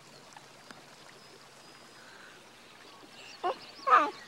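Two short, high-pitched squeals from a small child about three and a half and four seconds in, the second louder, over a faint steady hiss.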